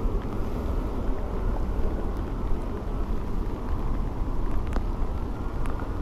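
Wind buffeting the microphone: a steady low rumble, with a few faint ticks.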